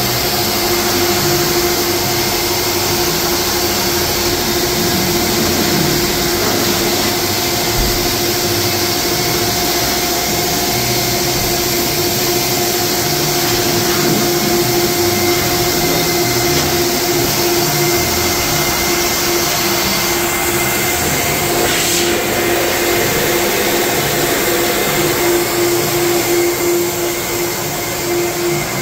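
Air Shammee car-wash air dryer blowing through its corrugated hose: a steady motor hum over a loud rush of air, the hiss easing a little about two-thirds of the way through.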